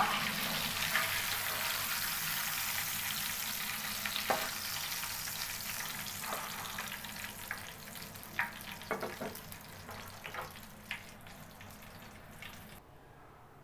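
Hot soybean oil sizzling in a frying pan as fried cabbage-leaf parcels of pangas fish are lifted out with a steel spatula, with a few sharp clicks and scrapes of the spatula on the pan and plate. The sizzle slowly fades and cuts off near the end.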